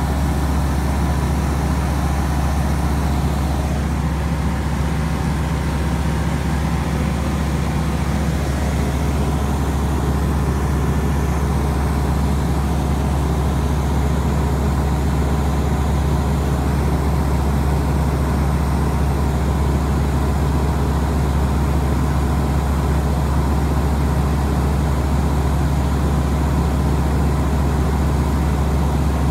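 Light aircraft's piston engine and propeller droning steadily at cruise, heard from inside the cabin: a loud, unchanging low hum with a few steady tones.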